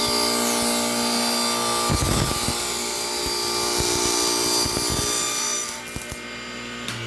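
Table saw running and ripping a thin strip off a board with a steady whine and the hiss of the blade in the wood. The sound drops off sharply about six seconds in.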